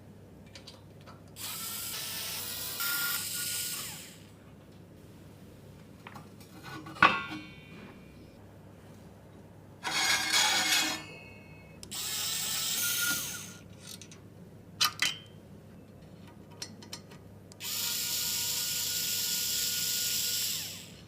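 A small electric power tool's motor running in short bursts of two to three seconds, with clicks and knocks of handled parts between the bursts.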